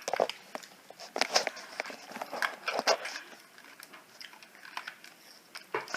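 Scattered plastic clicks and knocks of a LEGO-brick puzzle box being handled and turned over. They are busiest in the first three seconds and fewer later.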